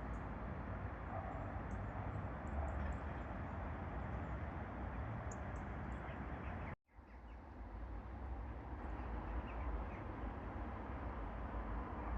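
Outdoor riverside ambience: a steady rushing noise with wind rumbling on the microphone and a few faint, short bird calls. The sound cuts out completely for a moment about seven seconds in.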